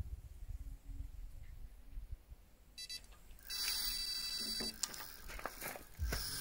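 Electronic carp bite alarm sounding a steady high tone: it starts suddenly about three seconds in, breaks briefly, then holds for about a second, the signal of a fish taking line. Low rumble and a few knocks come before and after it.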